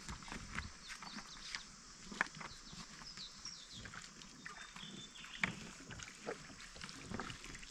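Faint outdoor sounds: scattered light knocks and clicks, two of them sharper, with a few short high chirps.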